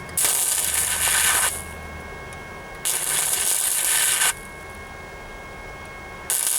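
Flux-core wire-feed welder running .030 flux-core wire, tacking a sheet-metal floor pan patch: three bursts of crackling arc, each one to one and a half seconds long, the last starting near the end. A faint steady hum runs underneath.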